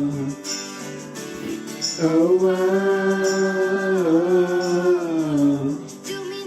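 A pop song played by a small band with a lead voice singing long held notes that glide slightly between pitches, softer for a moment about a second in.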